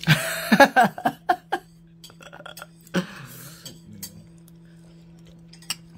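A metal spoon clinking and scraping against a bowl of tuna salad several times in quick succession, with another scrape about three seconds in. A brief burst of voice near the start is the loudest sound.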